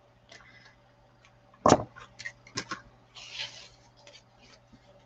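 Scissors snipping ribbon and the ribbon being handled: scattered light clicks, a sharper knock about a second and a half in, and a brief rustle about three seconds in.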